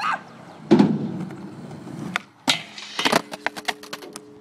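Skateboard wheels rolling on concrete with sharp board clacks and impacts, the loudest about a second in, and a quick cluster of clicks around three seconds in.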